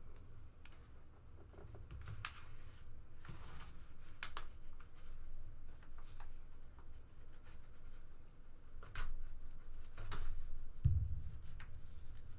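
A mailer envelope being worked open by hand: scattered crinkles, rustles and scrapes of paper and plastic packaging, a few louder ones about two, four, nine and ten seconds in, over a steady low hum.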